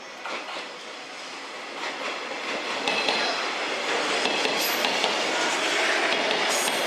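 A 485-series electric train rolls along the platform, growing louder about two seconds in, with wheels clicking over rail joints and brief high wheel squeals.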